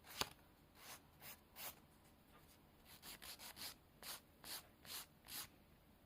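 Nail file rasping against a sculpted artificial nail in short, faint strokes, about a dozen of them, with a pause of about a second near the middle while the nail is shaped down its length.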